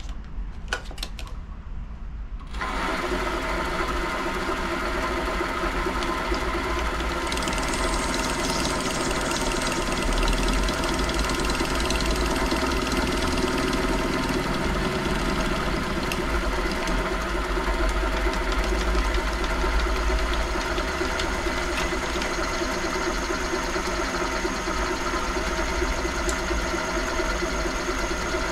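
A few clicks, then a WM210V variable-speed bench lathe starts about two and a half seconds in and runs steadily, its spindle drive giving a steady hum of several tones.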